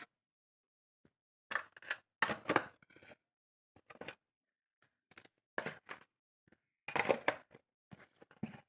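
Hands handling a phone's cardboard retail box, its white inner tray and paper leaflets: a string of short scrapes, taps and rustles with silent gaps between them.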